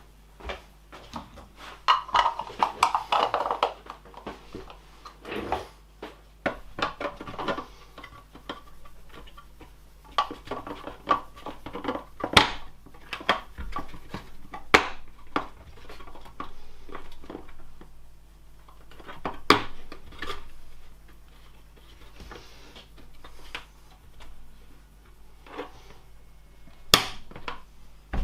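3D-printed plastic latch parts being handled and fitted together: scattered sharp clicks and knocks, with scraping and rattling in between, as pins and levers are pushed into place.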